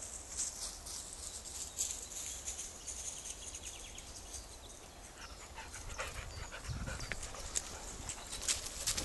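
A dog panting close by, with rustling and crunching of steps through dry grass and leaves, busier in the last few seconds.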